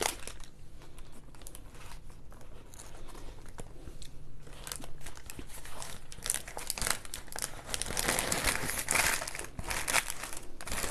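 Fast-food paper wrapping crinkling and rustling as it is handled, with irregular crackles that grow busier and louder in the second half.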